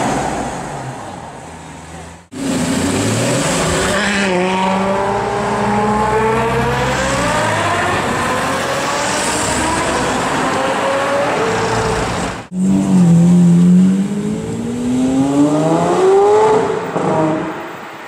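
Supercar engines accelerating hard in three spliced clips. First a Lamborghini Aventador's V12 note dies away. After a sudden cut comes a long pull with the pitch climbing and then easing off, and after another cut a louder rev that rises quickly before fading near the end.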